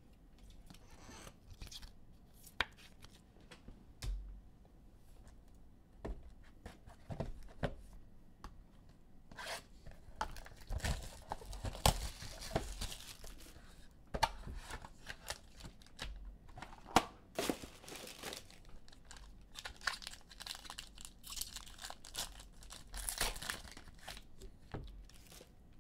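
Plastic shrink-wrap being torn and crinkled off a trading card box, then a foil card pack being torn open and crinkling, with scattered clicks and taps of handling. The crinkling comes in two longer stretches, one in the middle and one near the end.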